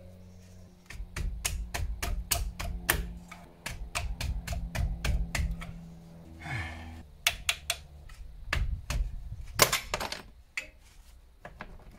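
Irregular runs of sharp metallic clicks and taps, several a second, from hand tools working on a car's front brake caliper and suspension fittings. There is a brief lull about halfway through.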